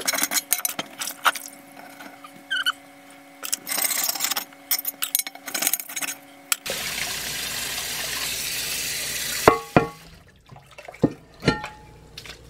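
Stiff brush scrubbing the ridges of a cast iron grill pan in quick, uneven strokes. About two thirds of the way through, the tap is turned on and water runs steadily for about three seconds. A few sharp clanks follow as it stops.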